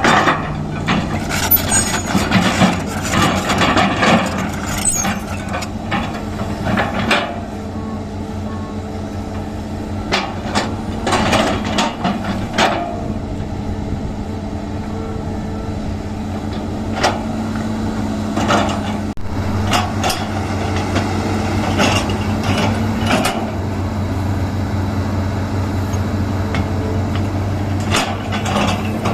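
Excavator engine running steadily under load while it digs a drainage ditch, with repeated knocks and clanks from the bucket and arm working the soil, most frequent in the first half and again near the end.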